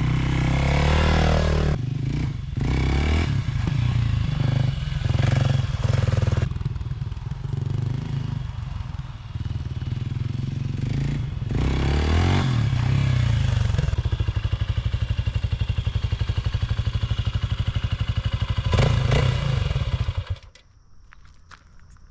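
A 2023 Kawasaki KLX 300's single-cylinder engine runs through a Delkevic 14-inch stainless slip-on muffler during a sound check. It is revved up and down several times, then settles to a steady pulsing idle. It gets one last rev and is shut off about 20 seconds in.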